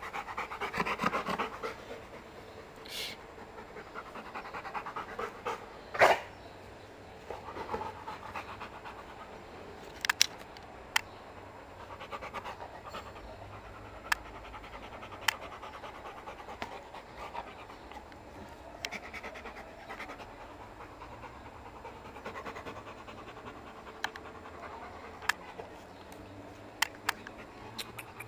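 Rottweiler panting hard and steadily, close up. Scattered sharp clicks break through it, the loudest about six seconds in.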